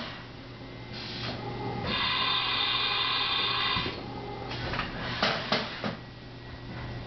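Haas VF-3SS vertical machining center moving under power: a steady high whine for about two seconds in the middle, then a few sharp clunks as the spindle head comes back down.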